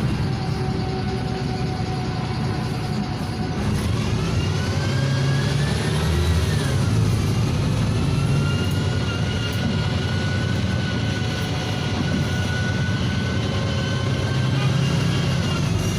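NefAZ 5299 city bus with its Cummins ISBe diesel and Voith automatic gearbox running under way, heard from inside the cabin. A whine rises as the bus pulls away about four seconds in, drops at a gear change a few seconds later, holds steady while cruising and falls away near the end.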